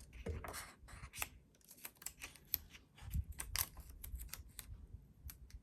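Paper being handled at a craft table: faint, irregular crisp clicks and crinkles, many in quick succession, thinning out toward the end.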